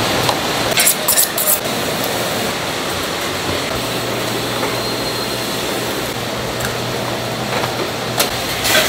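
Restaurant kitchen background: a steady ventilation hum and rush, with a few short sharp metallic clinks about a second in and again near the end, as of steel skewers being handled.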